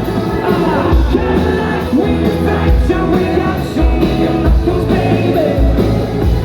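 Scottish indie rock band playing live and loud, with drums, bass and guitars and a voice singing over the band.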